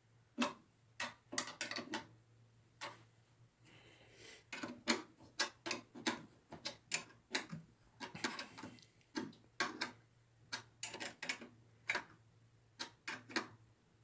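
Small wrench working the lock nuts that hold a car window-lift motor to a mini mill power-feed bracket. It gives a run of sharp metallic clicks, singly and in small clusters, spaced irregularly.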